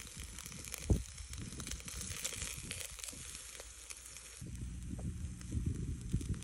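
Lamb sizzling on the wire grill of a charcoal shichirin brazier, a steady crackling hiss with small pops. A dull bump comes about a second in, and a low rumble joins about halfway through.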